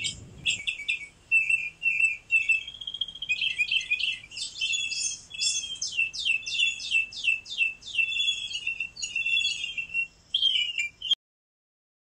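Songbirds chirping and singing in quick, repeated high-pitched phrases, cut off abruptly near the end.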